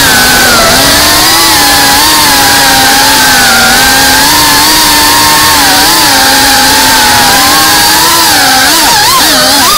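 GEPRC cinewhoop FPV drone's motors and propellers buzzing, picked up close by the onboard camera. The buzz holds a fairly steady pitch that sags and rises a little with throttle, wavering more quickly near the end.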